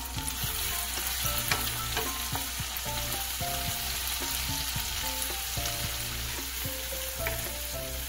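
Minced garlic sizzling in hot olive oil and butter in a frying pan, stirred with a wooden spatula that clicks and scrapes against the pan.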